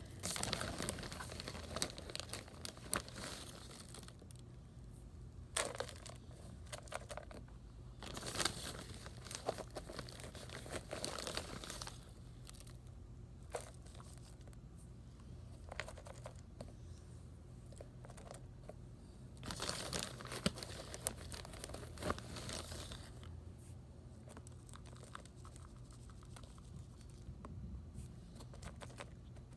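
A plastic bag crinkling as loose substrate is scooped out of it with a plastic cup and poured into a clear plastic tub, in irregular bursts of rustling and pouring with quieter gaps between.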